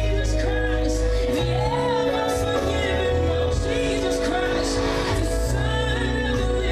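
Gospel church music: singing over long held chords and a moving bass line.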